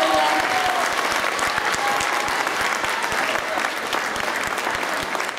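Audience applauding: dense clapping from many hands. The last notes of the backing music fade out in the first second.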